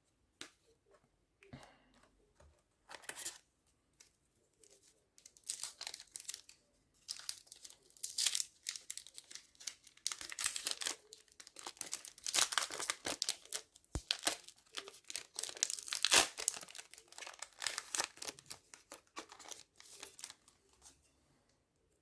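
A trading card pack's wrapper being torn open and crinkled in irregular rustling bursts, with the cards inside handled.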